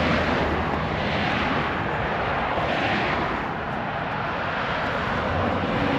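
Loud steady rushing noise with slow swells in strength, starting suddenly just before and cutting back near the end.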